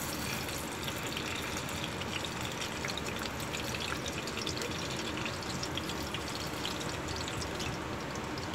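Saba banana pieces frying in hot cooking oil: a steady sizzle with many small crackles and pops.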